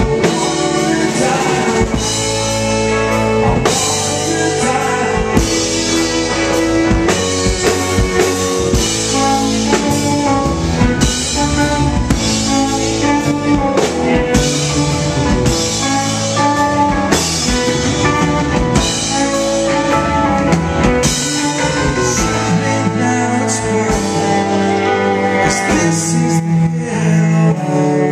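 A live rock band playing: electric guitar, bass guitar, drum kit, keyboard and bowed cello, with a steady drum beat.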